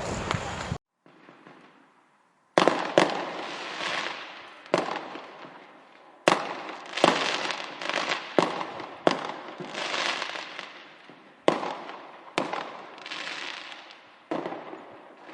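Fireworks bursting: a dozen or more sharp bangs at irregular intervals, each trailing off in a fading, echoing tail. A denser fireworks recording cuts off abruptly under a second in, and a short near-silent gap comes before the first bang.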